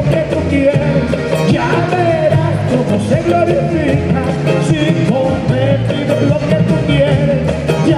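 Vallenato band playing live: a button accordion leads over acoustic and electric guitar and a steady bass line, with a man's voice over the music.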